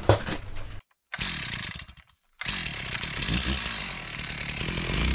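Stihl chainsaw engine running, starting a little past halfway after a brief sound and a moment of silence; its pitch wavers slightly.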